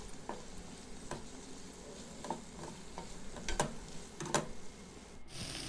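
Spatula scraping and knocking against a stainless steel kadai as cauliflower florets are stirred through fried masala, over a faint sizzle. A few sharper scrapes come about three and a half to four and a half seconds in, and the sizzle turns steadier near the end.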